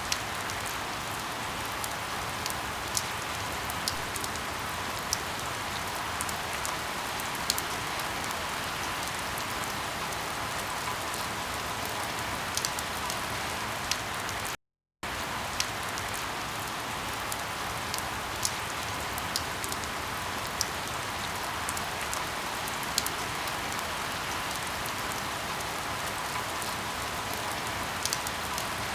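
Steady rain falling, with a constant hiss and scattered sharper taps of individual drops landing close by. The sound cuts out for a split second about halfway through.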